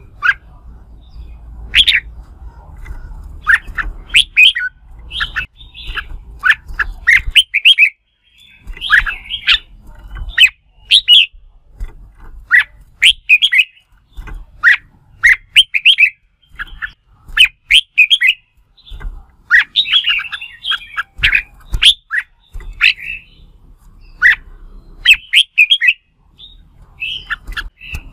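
Red-whiskered bulbul giving its competitive 'fighting' song: short, bright, chirping phrases a second or so apart, broken by brief pauses.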